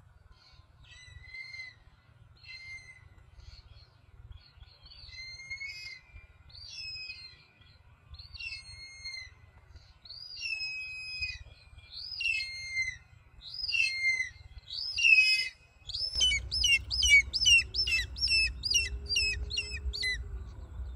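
Hawk-eagle calling: a series of high, shrill calls, each bending up and down in pitch, about one a second and growing louder. Near the end they turn into a quicker run of about three calls a second over a low rumble.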